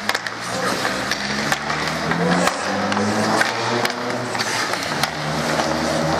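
Youth ice hockey play: skate blades scraping across the ice and sticks clacking against the puck and ice in sharp, scattered clicks, with voices calling out over it.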